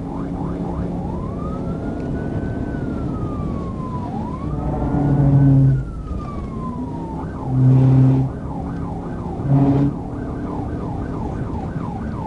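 Police patrol car siren sounding at high speed. It starts on a fast yelp, changes to a slow rising-and-falling wail for two cycles, then goes back to the fast yelp. Three loud, low horn blasts cut in over it, with steady road noise underneath.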